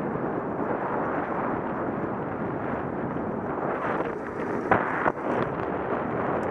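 Steady wind buffeting on the microphone of a camera on a moving bike, mixed with the rumble of the ride over the track. Two sharp knocks about half a second apart come a little after the middle.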